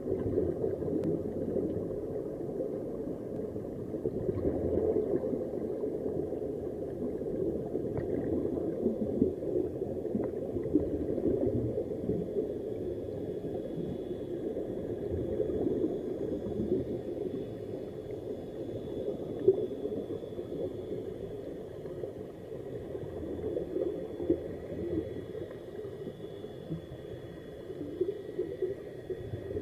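Muffled underwater bubbling and gurgling of air streaming out of air-fed sea-walk helmets, picked up underwater.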